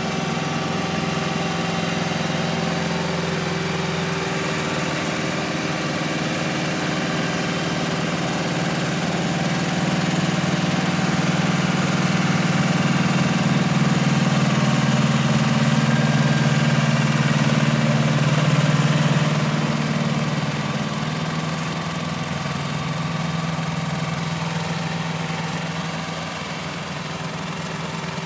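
Diesel engines of asphalt paving machinery running steadily at a low hum, growing louder for several seconds in the middle and then easing off, as if a machine passes close by.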